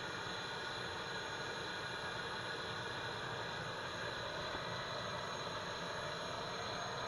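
Steady, unbroken high whine and hiss of the 2K12 Kub launcher's gas-turbine power unit running, driving its 30 kW generator while the missile launcher turns.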